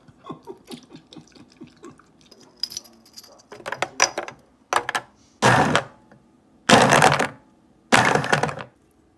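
Countertop blender run in five short pulses that grow longer, chopping apple chunks and kale into juice. A few light clicks and taps come before the first pulse.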